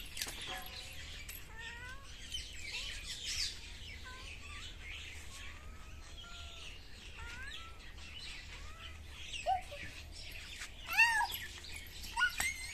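A cat meows a few times in the last few seconds, the loudest call about three-quarters of the way through. Small bird chirps run throughout.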